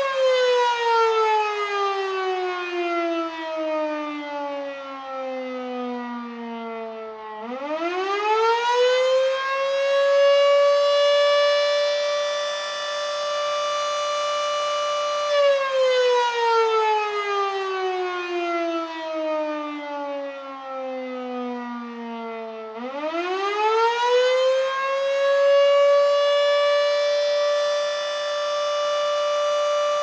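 Federal Sign and Signal Model 7B outdoor warning siren sounding a wail. The tone falls slowly for about seven seconds, climbs quickly back up, and holds steady for about five seconds. The whole cycle then repeats, and the tone starts to fall again near the end.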